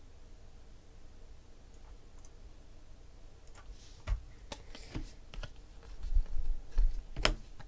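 Stack of baseball trading cards being flipped through and sorted by hand. Quiet at first, then from about three and a half seconds in a run of sharp clicks and short rustles of card stock, loudest near the end.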